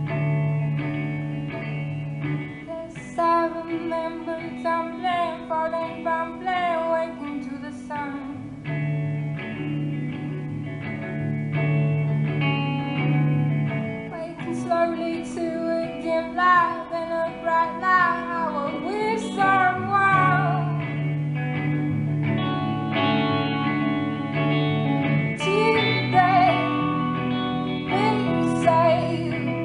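A woman singing with her own electric guitar in a live solo performance. The guitar plays sustained chords alone for the first few seconds, then her voice comes in, in phrases.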